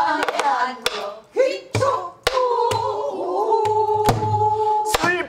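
A woman singing a Namdo folk-song line in long, held, wavering notes, accompanied by a Korean buk barrel drum: several sharp stick strokes and a few deeper thuds from the drum in a slow beat.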